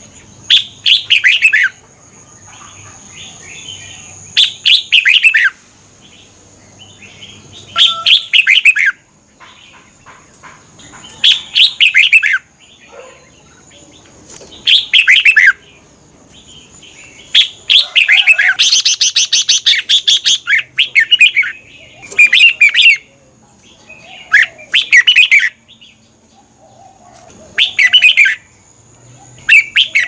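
Red-whiskered bulbul singing: short, loud phrases of quick notes about every three seconds, with one longer, faster run about two-thirds of the way through.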